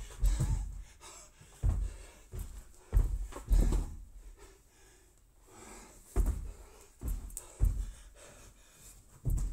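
Heavy panting of an athlete doing bar-facing burpees, broken by several dull thumps as his body drops and his feet land on the rubber gym floor.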